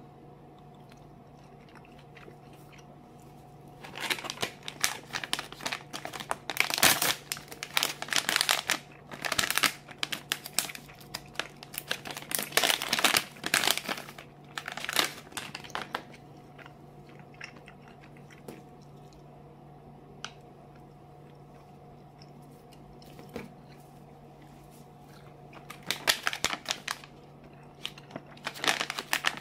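Plastic candy pouches crinkling as they are handled and squeezed, in a long stretch of crackling that starts about four seconds in, and again briefly near the end.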